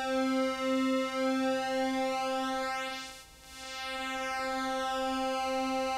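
A Commodore 64 MOS 6581 SID sound chip holding one synthesiser note on its pulse waveform while the pulse width is swept by hand, so the tone's colour shifts continuously (pulse width modulation). About three seconds in the note dips almost to nothing, then swells back.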